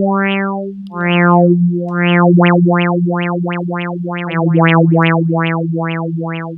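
Harmor software synthesizer playing a saw-wave pad through a resonant low-pass filter whose cutoff is swept by an LFO, giving a rhythmic wah-like opening and closing of the tone. The sweeps start slow and quicken to about three a second, over a held note that steps down in pitch twice.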